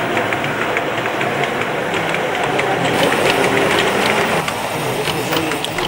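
Model train running on its track: a steady motor hum with a run of small, evenly spaced clicks from the wheels on the rails.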